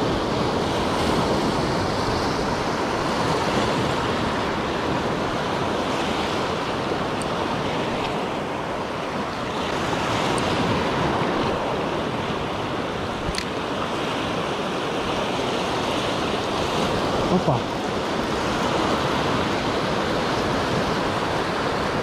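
Sea surf breaking and washing over a shallow rocky reef, a steady rushing that swells and eases. A single sharp click sounds about halfway through.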